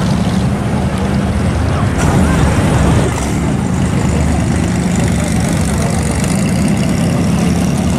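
Classic car engines running as the cars cruise slowly past, a steady low exhaust rumble. The sound changes about two seconds in and is briefly louder for about a second.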